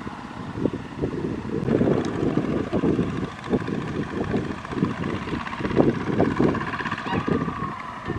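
Two-wheel walking tractor's engine running under load as it hauls a trailer of rice sacks out through a muddy canal crossing, with wind buffeting the microphone.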